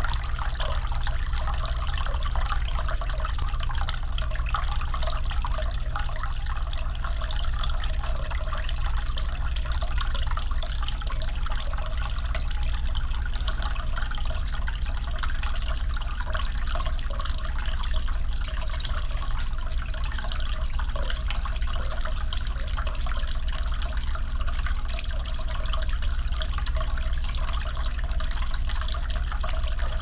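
Tabletop water fountain running: water trickling steadily from one poly-resin vase into the next and splashing into the basin below.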